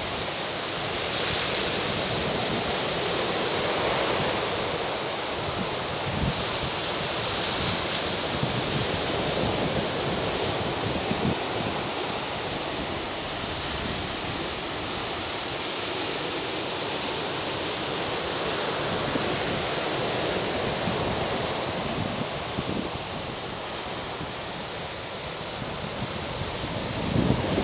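Steady rush of ocean surf breaking on the beach, an even hiss with no distinct crashes, and a few wind gusts buffeting the microphone near the end.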